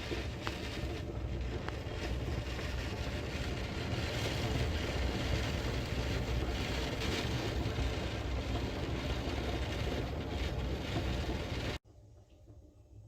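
Typhoon wind and heavy rain: a steady rushing noise with wind rumbling on the microphone, cutting off suddenly near the end.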